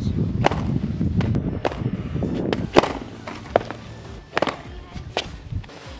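Skateboard wheels rumbling on a concrete driveway, fading after about three seconds, with irregular sharp clacks of the board, over background music.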